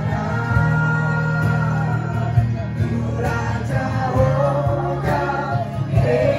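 Gospel worship music: singing over instrumental accompaniment with a steady low bass and scattered drum hits.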